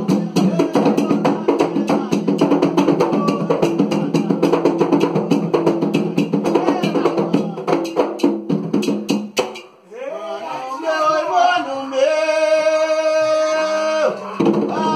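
Candomblé atabaque hand drums, beaten with bare hands in a fast, dense rhythm under group singing. The drums stop about nine and a half seconds in, leaving a single voice singing a long drawn-out line. The drumming comes back in near the end.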